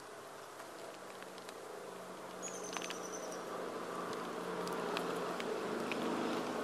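A flying insect buzzing, a steady low hum that grows gradually louder.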